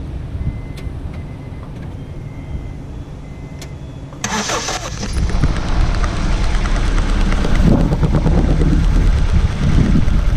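Honda CR-V engine being started after its wiring harness was reworked. After a quieter first few seconds it fires suddenly about four seconds in and keeps running, growing louder from about eight seconds in.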